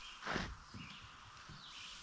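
Small bird chirping repeatedly with short, quick notes, with one brief bump about a third of a second in.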